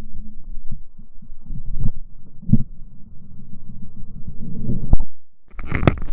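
Muffled thuds of a felling axe striking and splitting logs on a chopping block, picked up by a camera mounted on the axe itself, with a low rumble of handling and swing noise between the strikes. Near the end a louder, brighter rush of noise comes in.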